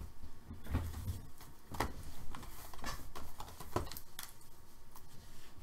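Two cardboard hobby boxes of trading cards being shuffled and set down by hand on a table mat: a scattered series of soft knocks and rubs.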